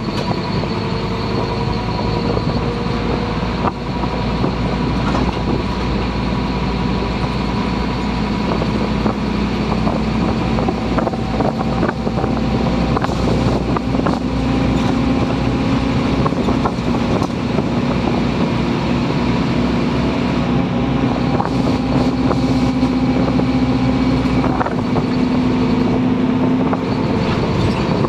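Scania OmniCity single-deck bus under way, heard from inside the saloon: its diesel engine running with the whine of the ZF automatic gearbox, several steady pitched notes that shift as it drives. The deep engine rumble drops away about three-quarters of the way through, with light interior rattles throughout.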